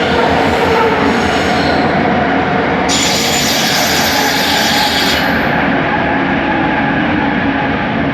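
Bombardier Innovia ART 200 light-metro train running at speed, heard on board: steady rolling noise with several steady motor tones from its linear induction motors. A harsh high hiss joins for about two seconds in the middle, then drops away.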